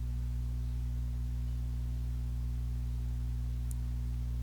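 A steady low drone of several held low tones, unchanging throughout, with a faint click near the end.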